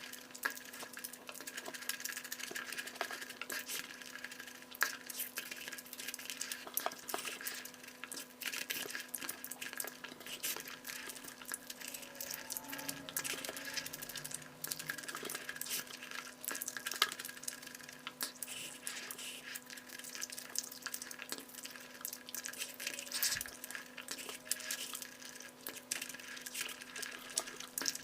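Close-miked eating of egg curry with basmati rice: a dense run of small wet clicks and squelches as the rice and curry are mixed and chewed. A steady low hum runs underneath.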